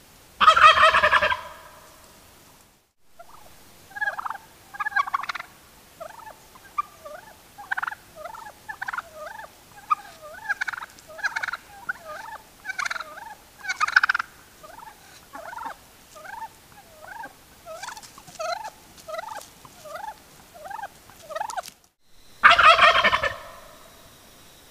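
Wild turkey toms gobbling: a loud rattling gobble about half a second in and another near the end. Between them comes a long run of shorter, quieter turkey calls, about two a second.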